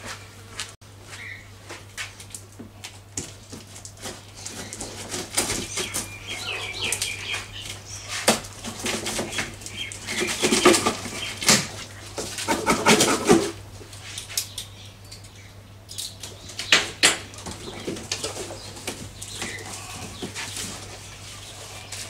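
Cardboard box being opened by hand. Flaps are pulled apart and packing is rustled and shifted in irregular bursts, busiest around the middle.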